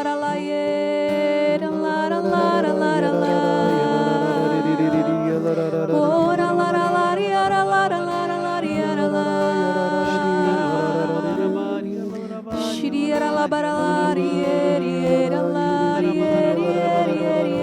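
Slow devotional vocal music: voices singing and humming long, sustained notes with vibrato, briefly dipping about two-thirds of the way through.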